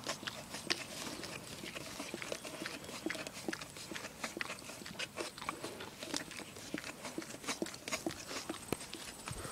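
Dog licking out a plastic cream pot: wet tongue smacks and slurps with irregular sharp clicks and knocks of the plastic pot, several a second.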